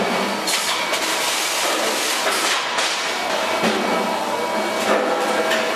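Steady running noise of a sandpaper cutting line's machinery, with irregular clattering knocks over it.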